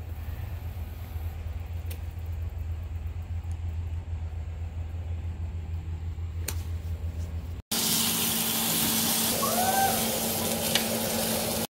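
Wind buffeting the microphone as a steady low fluttering rumble, with two faint clicks. After an abrupt cut near the end it gives way to a louder steady hiss over a low hum.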